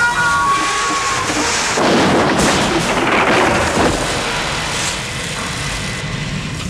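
Rumbling crash of a collapse, rock and debris coming down: a dense burst about two seconds in that lasts about two seconds, then a lower steady rumble.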